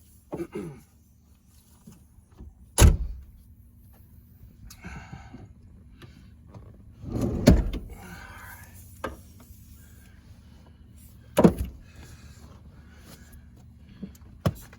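Four sharp clunks and knocks, the one about midway the longest and loudest, with rustling and scraping between them, from hands and tools working at a car seat and its mounts inside a car.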